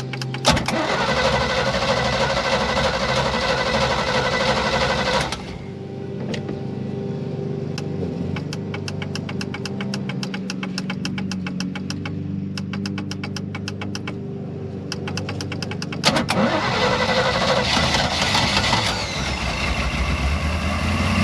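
Newly built 350 Chevy V8 marine engine in a ski boat running. It is loud for the first five seconds, then settles to a steady idle with a regular light ticking, and picks up again about sixteen seconds in.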